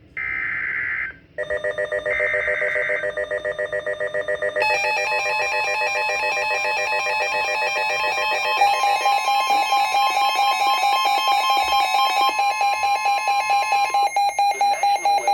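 NOAA Weather Radio emergency alert: two short bursts of SAME header data tones, then a weather alert radio's alarm beeping rapidly, with the steady 1050 Hz NWS warning alarm tone running under it from about five seconds in for about nine seconds. The alert signals a new severe thunderstorm warning about to be read.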